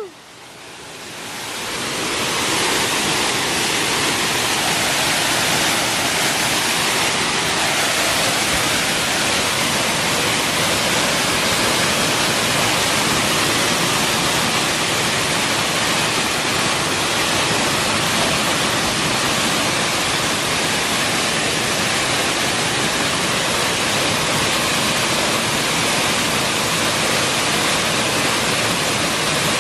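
Steady rush of a waterfall's falling water. It fades in over the first two seconds, then holds level.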